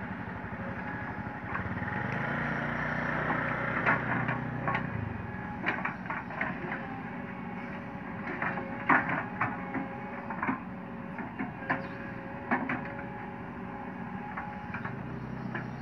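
Sumitomo SH130 hydraulic excavator's diesel engine running steadily, rising in load for a few seconds near the start, with a string of sharp knocks and cracks between about four and thirteen seconds in as the machine works the stony ground.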